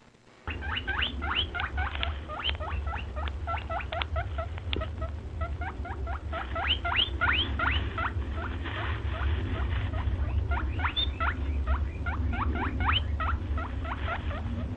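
Rabbit squeaking: a rapid run of short, rising squeaks, several a second, over a steady low hum.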